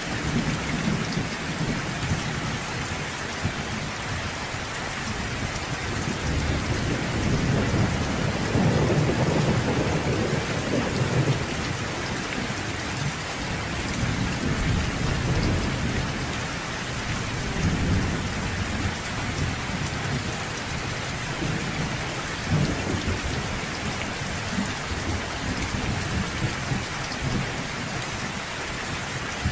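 Steady rain falling during a thunderstorm, with low rolling thunder rumbling under it. The thunder swells loudest about a third of the way in, and fainter rumbles come and go after that.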